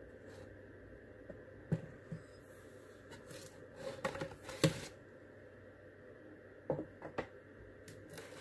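A cardstock box card being handled and opened out on a wooden tabletop: a few light taps and paper rustles, a small cluster about halfway through being the loudest, and two or three more near the end.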